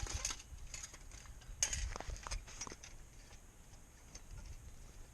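Light metallic clicks and rattles from a small wire cage trap, a cluster of quick clinks in the first three seconds, then a few scattered ticks.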